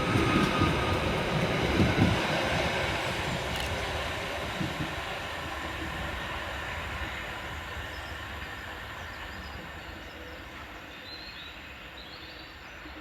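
Merseyrail Class 777 electric multiple unit pulling out of the station, its running noise loudest in the first couple of seconds and then fading steadily as it draws away.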